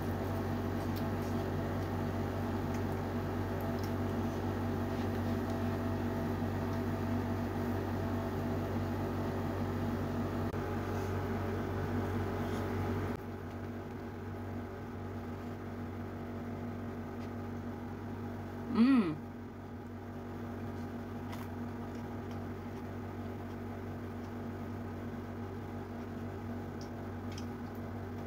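Steady multi-pitched hum of a motor-driven appliance such as a fan, which drops in level about 13 seconds in. Faint soft clicks of a hand mixing rice and fish on a plate, and one short loud pitched sound that bends in pitch, a little over halfway through.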